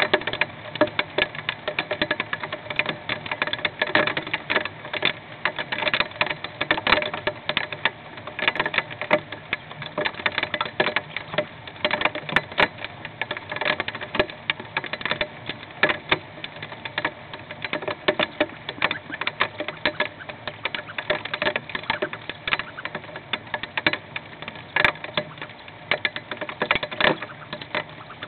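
Hail drumming on a nest box, heard from inside the box: a dense, irregular clatter of sharp impacts, many each second, with no let-up.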